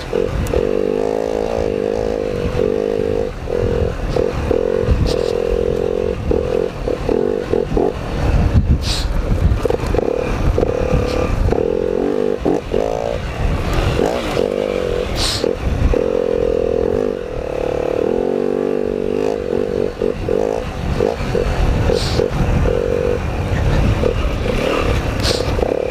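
Dirt bike engine revving up and down over and over as it is ridden, with a few sharp clicks and scrapes along the way.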